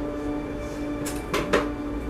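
Background music with steady held tones, broken by two quick knocks close together about a second and a half in.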